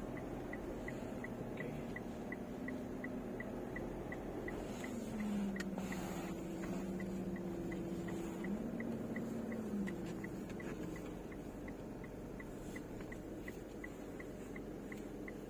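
Turn-signal indicator of a Mitsubishi Pajero Sport ticking steadily inside the cabin, about three ticks a second, with the right-turn signal on. A low hum runs underneath and drops and rises in pitch between about five and ten seconds in.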